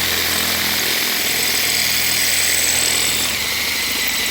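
Electric drill running steadily with a cobalt bit cutting into a snapped bolt in a small-block Chevy cylinder head, a continuous high-pitched grinding noise of the bit chewing through hardened steel.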